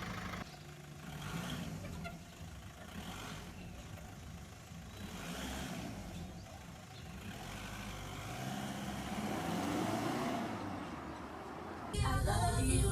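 A car's engine running as the car drives off, rising and falling. Music starts abruptly near the end.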